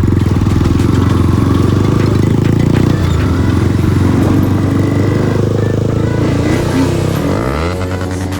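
Motorcycle engine running at a steady speed while riding, then dropping and rising in pitch near the end as the rider changes speed.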